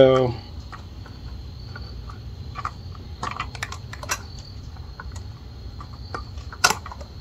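Scattered light clicks and taps of a long metal Allen key working a bolt on an e-bike's front fender bracket, with one sharper click near the end.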